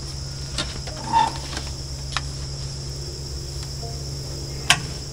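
Steady high drone of insects, with four short sharp clicks and taps of a tool on the tractor's engine as the spark plug wires are worked on; the loudest click comes near the end.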